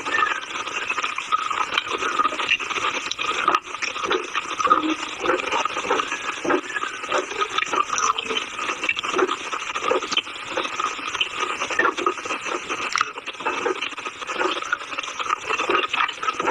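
Close-miked crunching and chewing of chalk: a dense, continuous crackle of small crunches and grinding, with no pauses.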